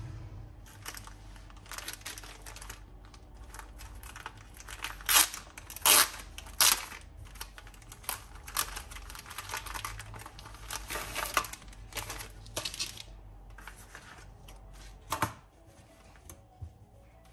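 Clear plastic packaging crinkling and crackling as it is opened by hand and a cushion-back fabric is slid out of it, with the loudest crackles about five to seven seconds in.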